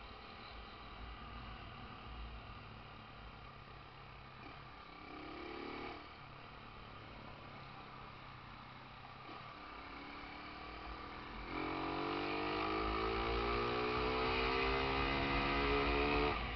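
Honda CG single-cylinder four-stroke motorcycle engine, tuned up to 194 cc, running under way over a low rumble of wind on the microphone. About five seconds in the revs rise briefly. From about two-thirds of the way through the engine revs up steadily and loudly, its pitch rising, until the throttle closes just before the end.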